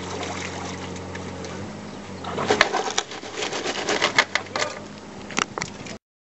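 A pipe-bursting rig's power unit hums steadily. About two and a half seconds in, a rapid irregular run of sharp cracks and snaps starts as the bursting head breaks up the old steel-reinforced concrete sewer pipe.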